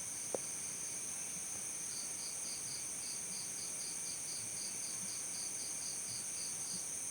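Crickets calling: steady high-pitched trilling with a separate rhythmic chirp of about four pulses a second that starts about two seconds in and stops near the end. A single brief click sounds under half a second in.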